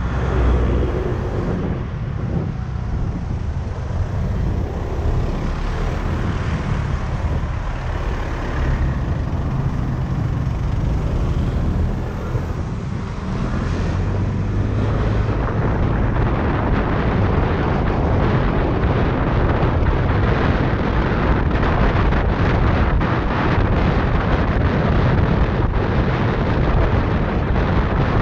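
Ride-along noise of a Yamaha Tricity 125 scooter's single-cylinder engine and tyres on the road, with wind buffeting the microphone. The noise gets louder and gustier about halfway through.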